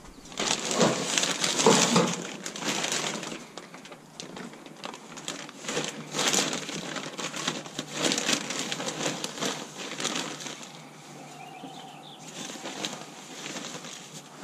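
Rustling and crinkling of a plastic bag of aspen wood shavings and dry hay being handled, in irregular bursts with short pauses, busiest in the first few seconds.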